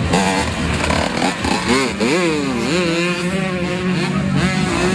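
Motocross bike engines revving, pitch rising and falling with the throttle. One engine holds a steady drone while another swoops up and down, most sharply about two seconds in.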